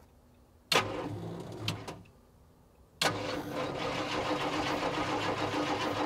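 Truck engine being jump-started from a cold JF.EGWO 6000A lithium jump starter. There is a short burst of cranking about a second in that stops, a pause, then from halfway a steady run of engine sound as it turns over and runs. It took a couple of tries to get the cold jump starter to work.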